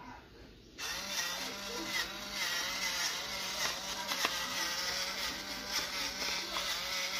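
Electric pepper grinder running, its motor humming steadily over the grinding of peppercorns; it starts about a second in and keeps going.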